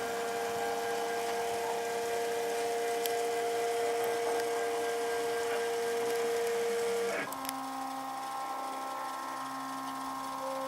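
Homemade CNC router running with a steady electric motor whine; about seven seconds in the pitch drops abruptly and settles on a new, lower steady tone.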